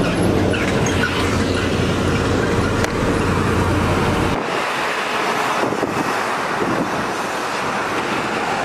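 Truck crane's diesel engine running steadily with a low hum; about four seconds in the hum cuts off suddenly, leaving lighter outdoor noise.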